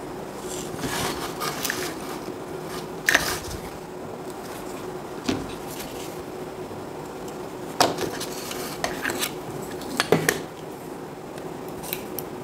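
A charger circuit board and tools being handled and set down on a workbench: a few sharp knocks and clatters, the loudest about three seconds in and a double knock near ten seconds, with rubbing and rustling between them. A faint steady hum runs underneath.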